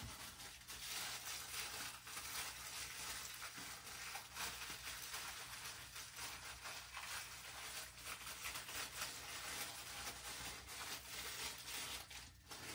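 Cat eating from its bowl: a steady run of small crackling chewing and lapping clicks, stopping near the end as it lifts its head.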